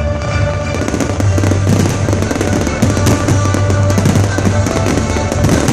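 Fireworks barrage: rapid, overlapping bangs of aerial shells, thickening about a second in, over loud show music played through loudspeakers.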